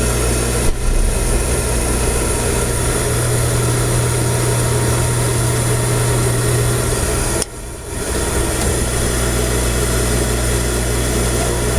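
Beckett oil burner's motor, blower and fuel pump running with a steady hum and rush of air while the pump is bled of air through its opened bleeder. The sound drops out briefly about seven and a half seconds in, then picks up again.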